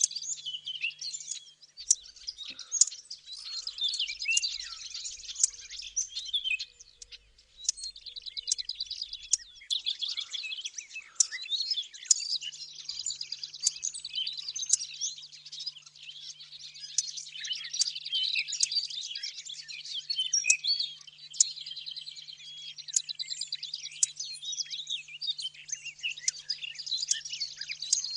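Recorded warbler songs layered together as a hunting lure: willow warbler, lesser whitethroat and blackcap. They form a dense, continuous twittering with frequent sharp clicking notes.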